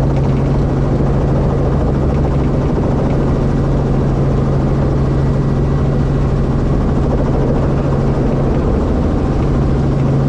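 Helicopter's rotor and engine heard from inside the cockpit, running steadily as it air-taxis low along a taxiway, with a strong, steady low hum under a dense, even din.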